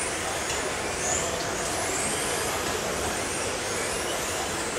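Electric radio-controlled touring cars racing around an indoor track: several high-pitched motor whines rise and fall over a steady hiss.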